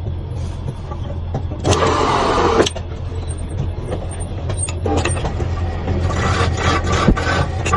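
Wood lathe running with a steady low hum, with a tool cutting into the spinning wood in a loud scraping burst about two seconds in and again, rougher and pulsing, near the end.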